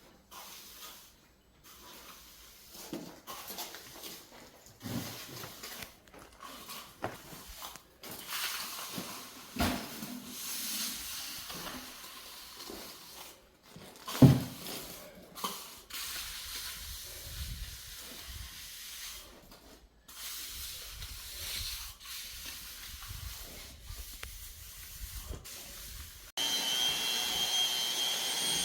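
Intermittent scraping and knocking of work on a concrete yard, with one sharp thump about halfway through; near the end a machine starts up and runs steadily with a high whine.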